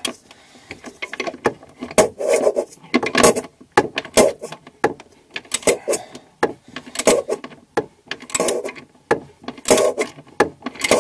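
A wrench turning an 8 mm faucet mounting nut tight under a sink: short bursts of metal clicking and scraping, about once a second, as the handle is worked back and forth.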